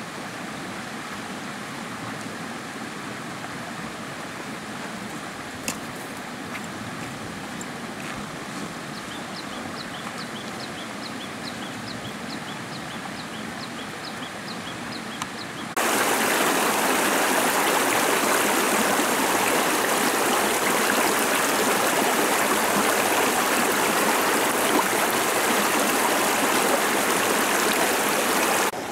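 Shallow rocky stream rushing steadily through a low stick-and-log dam, loud and even, starting suddenly about halfway through and cutting off just before the end. Before it there is a softer steady hiss with a small bird chirping repeatedly, about two calls a second.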